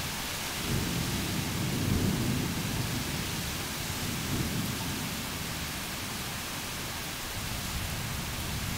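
Summer thunderstorm: heavy rain hissing steadily as strong wind tosses the trees. A low rumble swells about a second in, peaks around two seconds and dies away by about five seconds.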